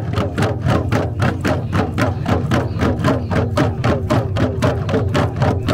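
Many kundu hourglass hand drums beaten together by a line of Huli wigmen, in a fast, even rhythm.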